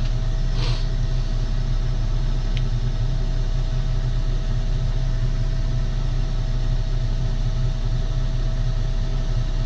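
Tractor engine idling steadily, a low even hum with a constant whine above it and a soft click about half a second in.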